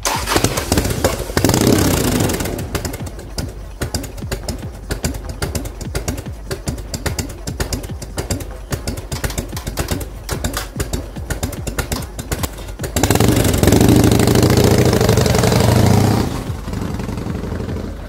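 Harley-Davidson Evolution 1340 cc V-twin of a 1993 Fat Boy, revved once about a second in, then idling with its uneven potato-potato lope. About thirteen seconds in it is opened up loudly as the bike pulls away, then eases off near the end.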